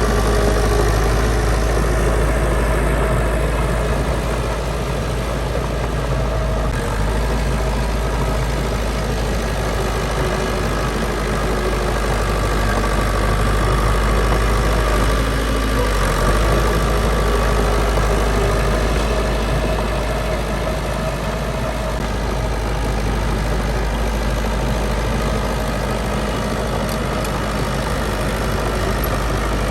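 Heavy construction machine's diesel engine running steadily, with a strong low rumble and no change in pace.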